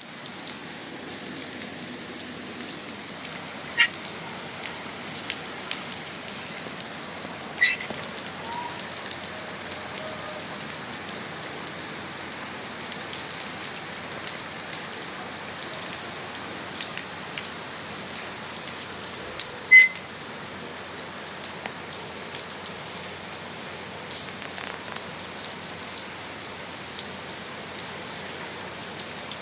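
Steady rain falling, with a few sharp, louder taps of drops striking something close by: one about four seconds in, one about eight seconds in, and the loudest about twenty seconds in.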